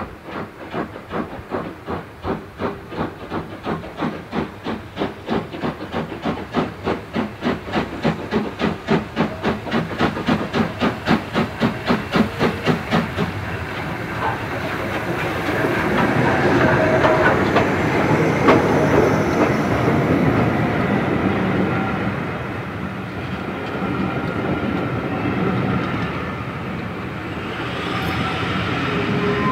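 Two Caledonian Railway steam locomotives, a 439 Class 0-4-4 tank and an 812 Class 0-6-0, double-heading a train, their exhaust beating evenly at about four beats a second and growing louder as they approach. About halfway through they pass, and the coaches roll by with wheels clicking over the rail joints.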